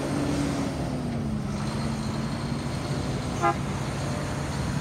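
Semi-truck's engine running as it drives past, its pitch dropping slightly, then one very short horn toot about three and a half seconds in.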